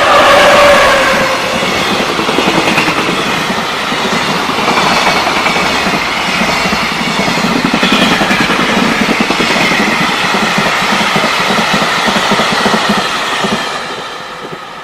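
A JR Freight freight train passing at speed. As the front passes near the start, a pitched tone drops in pitch. The wagons then roll by with a steady rumble and rhythmic clickety-clack over the rail joints, fading near the end as the last wagon goes by.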